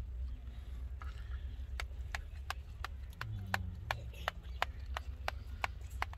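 Kitchen knife scoring a tray of soft sweet into pieces, its blade clicking lightly against the metal tray about three times a second, starting a couple of seconds in, over a steady low rumble.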